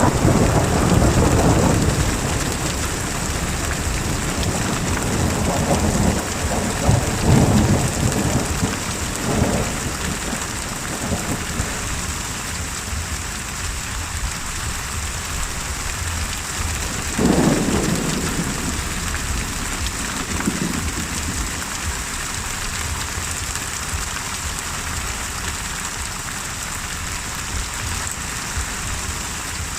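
Thunderstorm: steady heavy rain hissing, with rolls of thunder rumbling at the start, again around six to ten seconds in, and once more about seventeen seconds in, followed by a fainter roll.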